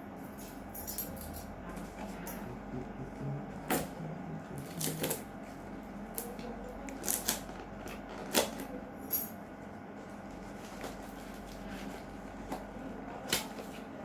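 Packaging being handled and opened by hand: scattered short rustles and light knocks, several spread irregularly through the stretch, over a steady low hum.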